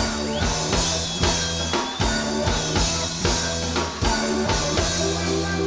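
Live rock band playing the instrumental opening of a song: a drum kit beat with bass drum and snare over a repeating bass line, the hits coming evenly about twice a second.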